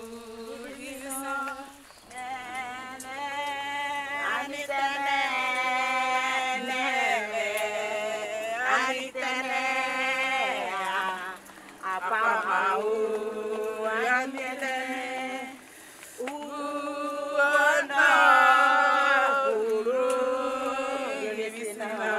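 A sung chant: long, held, wavering notes in phrases of a few seconds each, with brief breaks between phrases, swelling loudest near the end.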